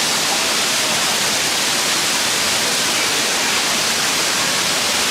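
Waterfall rushing at close range, a loud, steady roar of falling water, running full after rain.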